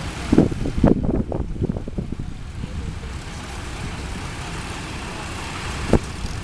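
Old flatbed truck's engine running low as it drives slowly across grass, mixed with wind rumbling on the microphone, which thumps in gusts near the start and again near the end.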